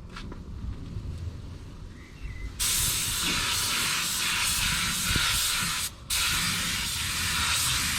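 Compressed-air paint spray gun spraying. The hiss starts suddenly about two and a half seconds in, stops for a moment around six seconds as the trigger is released, then starts again.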